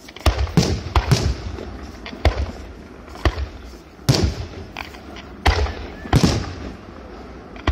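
New Year's aerial fireworks exploding: about a dozen sharp bangs at uneven intervals, several of them followed by a short echo.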